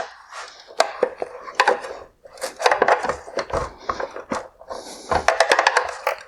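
Clicks, knocks and rattles of a hand tool and plastic parts on an LED headlight assembly as a mounting bracket is worked off the projector, with a quick run of clicks near the end.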